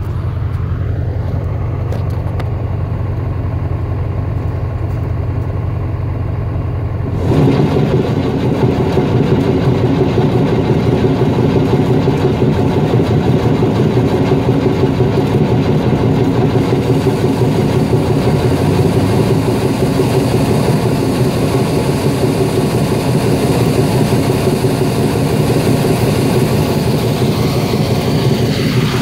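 Grain truck engine running steadily; about seven seconds in the sound jumps abruptly to a louder, heavier mechanical running and stays there.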